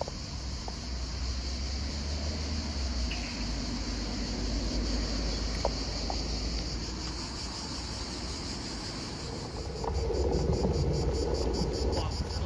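Cicadas buzzing steadily and high, over a low rumble of wind on the microphone; about ten seconds in the rumble grows louder.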